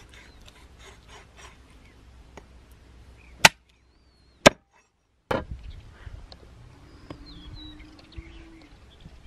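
Three sharp chopping blows about a second apart, the first two cut off abruptly, the third followed by a brief ringing knock.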